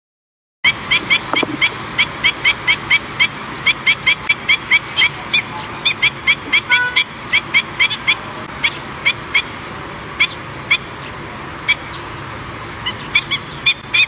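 Black-winged stilt calling: a rapid series of short, sharp yelping notes, about three or four a second, thinning to single notes every second or so after about eight seconds, over a steady hiss.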